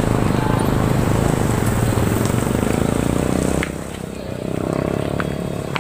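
A motor vehicle engine running close by with a rapid, even beat, dropping in level about three and a half seconds in.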